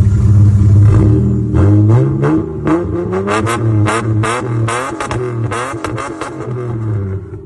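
A four-wheel-drive's engine heard from its exhaust, first running steadily, then revved in a quick series of throttle blips that rise and fall several times a second, easing off near the end.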